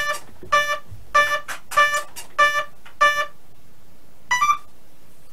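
Electronic speed controller of an RC plane's brushless motor sounding its start-up beeps after the flight battery is plugged in: six short identical beeps about half a second apart, giving the cell count of a 6S pack, then a quick rising three-note tone that signals it is armed and ready.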